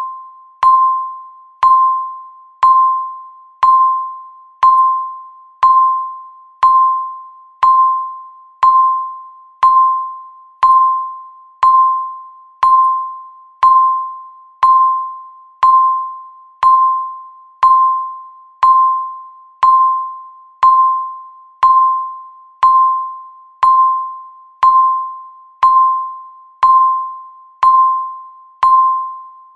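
Countdown timer beeping once a second: a single high electronic tone, each beep starting sharply and fading away before the next.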